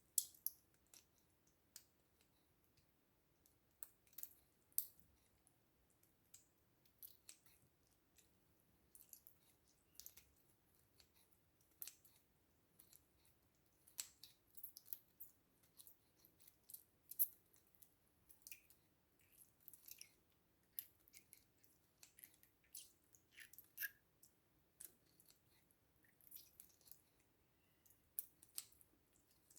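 Slime being worked, making soft, irregular sticky clicks and little squishes scattered throughout.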